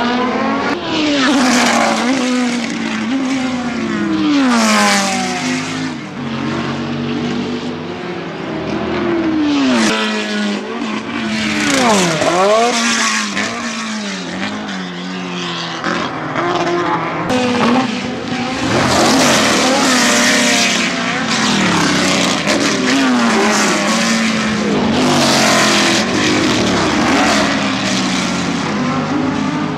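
Historic open sports racing cars, big-banger V8s among them, passing one after another at racing speed. The engines rev up and down through gear changes, and each one drops in pitch as it goes by.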